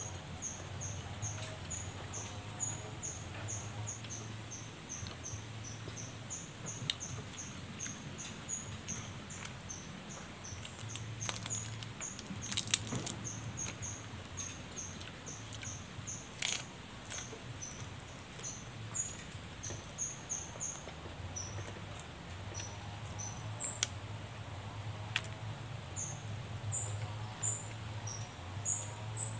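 Eating sounds: chewing, and roasted small fish being picked apart by hand on banana leaves, with a few sharp crackles, the loudest about 13, 16 and 24 seconds in. Behind it a high chirp repeats about three times a second throughout.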